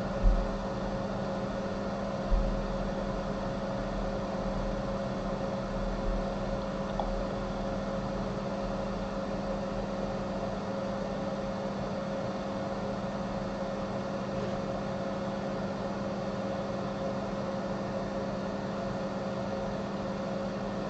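Steady machine hum, like a small fan or bench appliance, with a constant low drone and a fainter higher tone above it. A couple of soft low bumps sound in the first few seconds.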